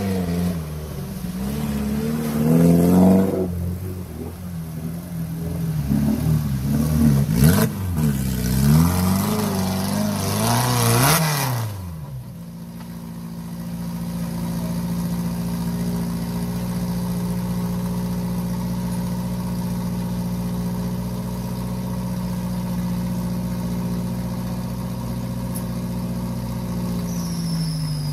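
Off-road 4x4's engine revving up and down repeatedly for about twelve seconds, then settling to a steady idle.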